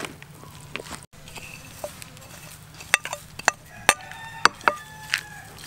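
Metal spoon stirring and tossing shredded banana flower salad in a plastic basin, with a run of sharp clinks and taps in the second half.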